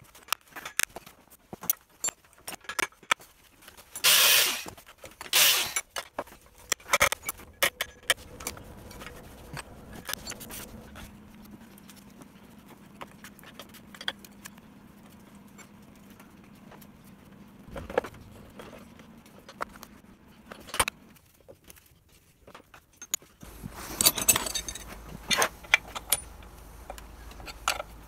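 Metal parts of a disassembled LMM-6 outboard motor clinking and knocking as they are handled in a vise. The knocks are irregular, with the loudest clanks a few seconds in, a quieter stretch in the middle, and more knocking and scraping near the end.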